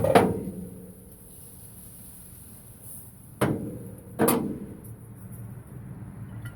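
Four sharp knocks, each with a short ringing tail. Two come close together at the start and two more come under a second apart about three and a half seconds in.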